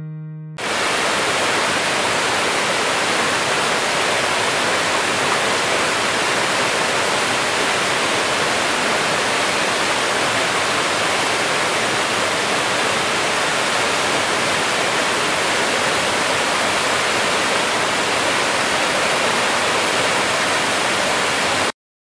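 Waterfall, a steady full rush of falling water that starts abruptly about half a second in and cuts off suddenly near the end.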